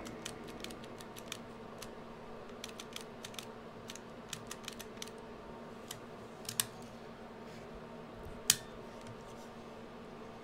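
Light, scattered clicks and taps of small parts being handled inside an opened cassette Walkman, with a couple of sharper clicks past the middle, over a faint steady hum.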